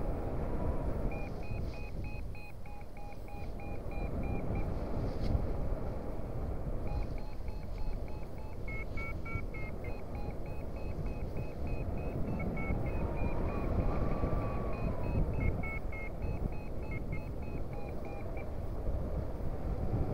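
Paraglider's variometer beeping in short, quick pips, about three a second, over wind rushing on the microphone. This is the climb tone that signals rising air. The beeping pauses for about two seconds about a quarter of the way in, then runs on and stops shortly before the end.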